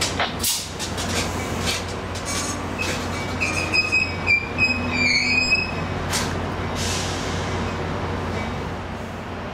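Amtrak passenger railcars rolling slowly during a switching move. Their wheels squeal in several high tones for a few seconds in the middle, with clanks near the start and at about six seconds, over a steady low hum.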